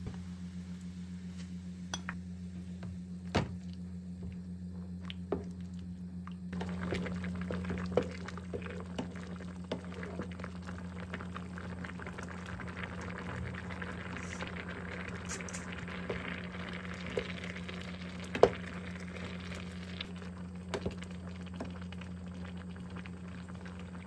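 Kimchi porridge boiling in a saucepan, bubbling and popping over a steady low hum. The bubbling grows fuller after several seconds, with scattered sharp pops.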